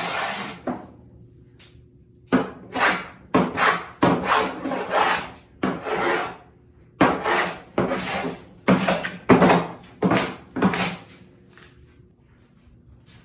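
A No. 6 fore plane with a cambered iron taking short strokes along a pre-primed pine board, shaving off the paint. The strokes come quickly, about two a second, and stop about eleven seconds in.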